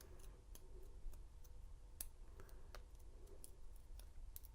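Faint, scattered light clicks, about eight in four seconds, from a brass padlock and its key being handled.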